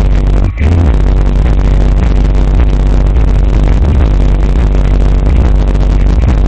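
Ascendant Audio Arsenal 12-inch subwoofer in a ported enclosure tuned to 32 Hz, pushing a song's bass line very loudly. The bass cuts out briefly about half a second in, then carries on steadily.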